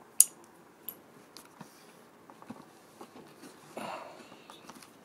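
Trading cards and a pack wrapper being handled: a sharp click just after the start, scattered light taps, and a brief rustle about four seconds in.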